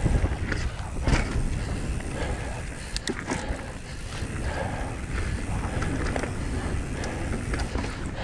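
Mountain bike rolling fast down a dirt trail: tyre noise and a low rumble throughout, with the bike rattling and a few sharp knocks over bumps, one about a second in and two close together around three seconds in.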